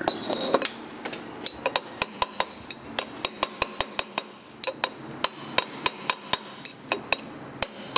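Light, quick hammer taps on a long steel drift, metal ringing on metal, driving a sealed ball bearing into a Rolls-Royce Corniche water pump housing. The strikes come about three to four a second, starting about a second and a half in with a couple of short pauses, as the bearing's outer edge is tapped around in a star pattern to walk it down square.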